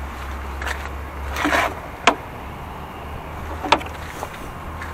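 A low steady rumble with a few short knocks and scuffs scattered through it.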